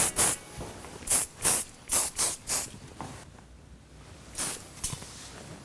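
Aerosol hairspray sprayed in short bursts, about seven quick hisses in the first three seconds and two more near the end, as a finishing spray over a completed bun.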